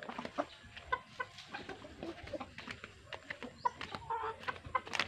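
Domestic hens clucking: many short, scattered clucks.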